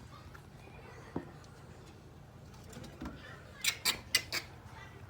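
A single sharp click about a second in, then a quick run of four or five sharp taps and clicks near the end, over a quiet background.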